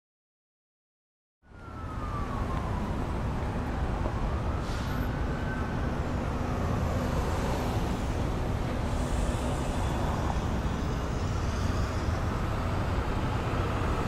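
Silence for about the first second and a half, then busy city street traffic: a steady rumble of vehicles with a siren slowly wailing up and down over it.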